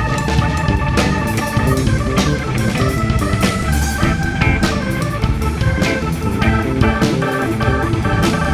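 Band playing an instrumental passage: organ-toned keyboard over a steady drum-kit beat and bass, with the keyboard breaking into short repeated chords in the second half.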